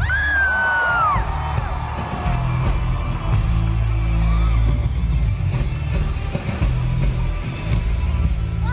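Loud live concert music over a festival sound system, with a heavy, steady bass. A long yelling cry holds and then falls away in the first second, and another starts near the end.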